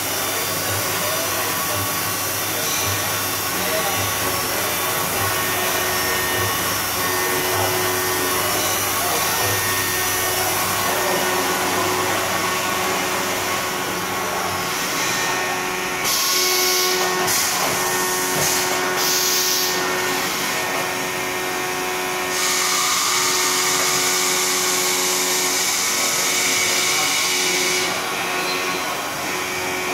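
CNC profile machining center milling an aluminium extrusion: the spindle and cutter run steadily with many held tones over a hiss. Stretches of louder, hissier cutting noise come about halfway through and again later on.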